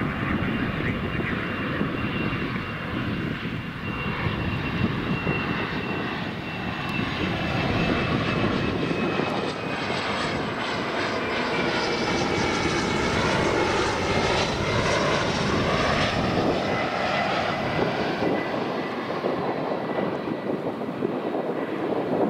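Embraer ERJ-140 regional jet's twin rear-mounted Rolls-Royce AE 3007 turbofans on a landing approach with gear down: a steady rumble with a high whine that slowly drops in pitch, loudest around the middle.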